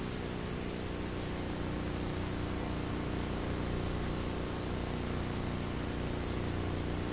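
Steady hiss with a faint low hum and no distinct events: the background noise of an old analogue recording.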